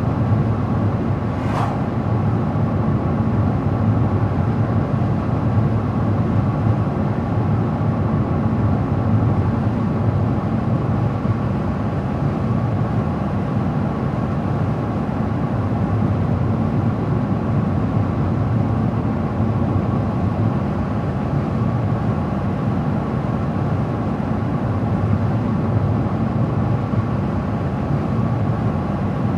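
A car driving steadily on the road, with continuous tyre and engine noise and no change in pace. A faint click sounds about a second and a half in.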